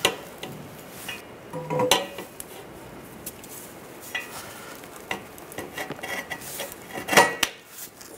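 Steel exhaust pipes clanking and scraping as a new catalytic converter front pipe is worked by hand into the joint of the rear exhaust pipe. There are a few ringing metal knocks: one at the start, one about two seconds in, and the loudest near the end.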